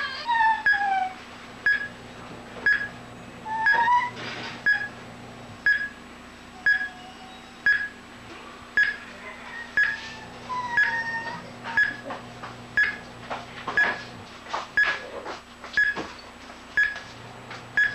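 Quartz watch tester's speaker beeping about once a second, each beep following one drive pulse of the watch movement's stepping motor. The tester's display reads a normal watch movement.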